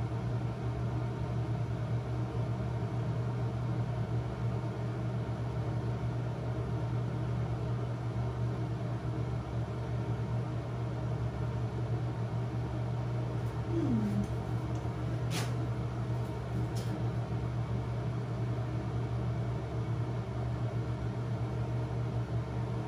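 A steady low mechanical hum, with a brief falling tone about fourteen seconds in and a single sharp click just after it.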